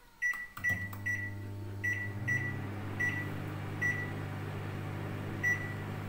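Microwave oven keypad beeping as it is set, then the oven starting about half a second in and running with a steady low hum, with further short beeps now and then; it is set for a four-minute heating.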